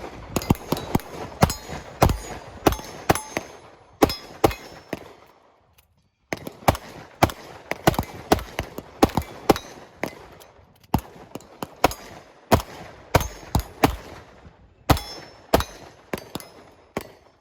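Handgun shots fired in quick strings, roughly two a second, each sharp crack followed by a short ring, with a short break about six seconds in.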